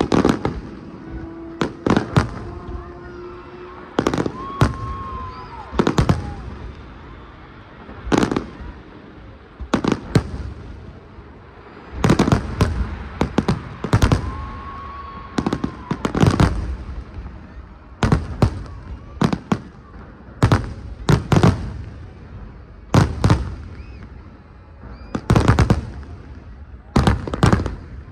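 Fireworks display: aerial shells going off in loud bangs, singly and in quick clusters of two or three, every second or two, with a couple of whistling tones between them.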